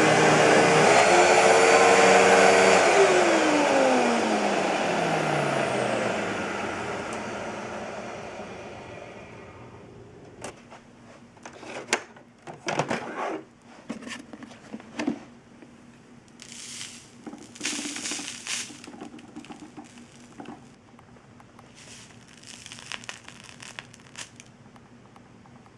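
Hoover WindTunnel Bagless U5753-900 upright vacuum cleaner running, then switched off: its motor winds down with a falling whine and the airflow noise fades away over several seconds. After that come scattered knocks, clicks and rustles from the machine being handled.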